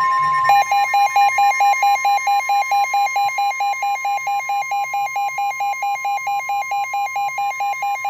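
NOAA Weather Radio's steady 1050 Hz warning alarm tone, which signals that a warning message follows and sets off tone-alert receivers. A weather radio's own alert beeps rapidly over it, starting about half a second in.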